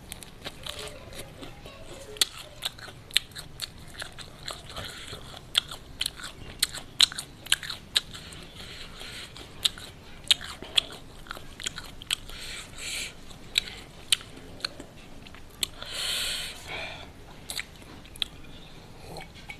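Close-miked biting and chewing of crispy fried chicken: a quick, irregular run of sharp crunches. A short hiss comes about sixteen seconds in.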